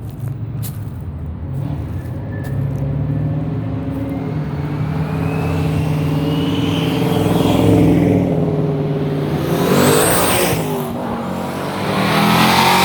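Loud car engine rumbling as the 1957 car approaches, its pitch and level rising to a pass-by about eight seconds in. More loud car engines swell past after it, the loudest near the end.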